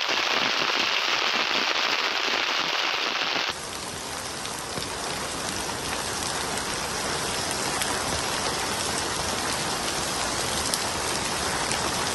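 Heavy rain falling steadily. About three and a half seconds in, the sound changes abruptly to a slightly quieter, hissier rain.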